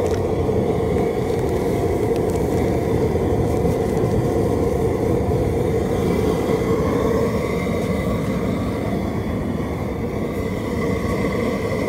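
Steady rumbling roar of the propane burner firing under an R&V Works Cajun seafood boiler, its water at a rolling boil.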